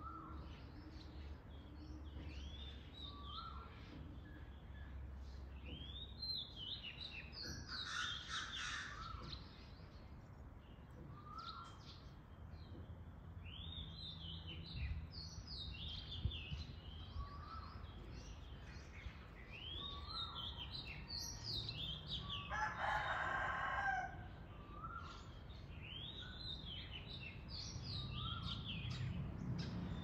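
Songbirds singing short, repeated rising-and-falling phrases every few seconds, with a rooster crowing, the loudest crow about three-quarters of the way through. A faint low rumble runs underneath.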